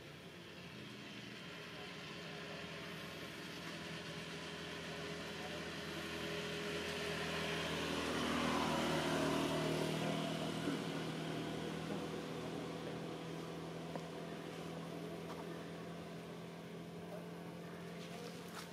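A motor vehicle's engine passing by, growing louder to a peak about halfway through and then fading away.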